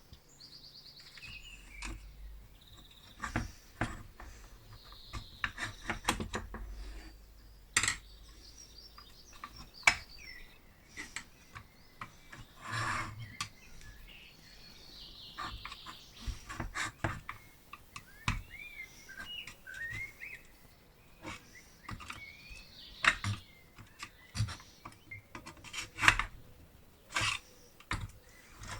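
Irregular metallic clinks, taps and knocks of small metal parts being handled and worked, with birds chirping in the background.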